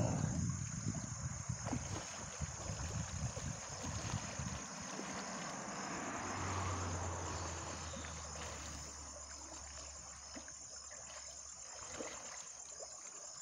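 Muddy river water rushing and splashing around a man swimming through the current, louder in the first few seconds, with a steady high insect buzz behind it.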